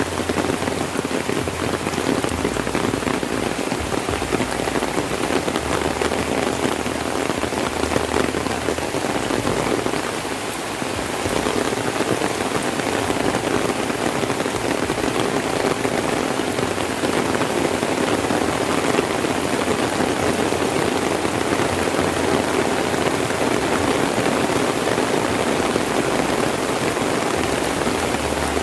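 Heavy rain falling steadily, a dense even hiss of raindrops.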